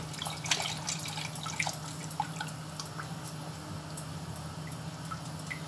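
Milk poured from a glass bottle into a steel pot of hot flour-and-ghee roux, dripping and splashing with small plinks mostly in the first two seconds. A wooden spoon then stirs the thickening béchamel. A steady low hum runs underneath.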